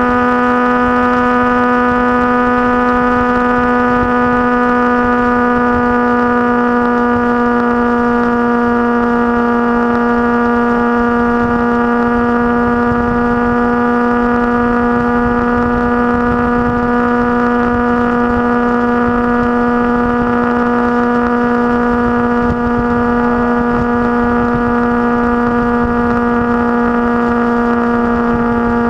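Motorcycle engine running at a steady cruising speed, a constant, unwavering drone with rushing noise beneath it.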